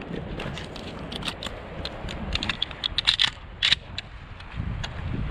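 Irregular clicks, crackles and scrapes from an old 16-gauge pump-action shotgun being handled and brought up to the shoulder, with one sharper click about three and a half seconds in.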